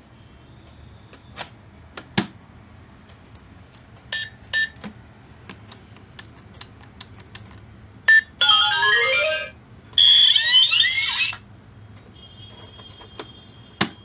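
Toy ATM piggy bank with an electronic keypad lock: a few plastic clicks and short keypad beeps, then two brief tinny electronic jingles from its sound chip, the first a quick rising run of notes.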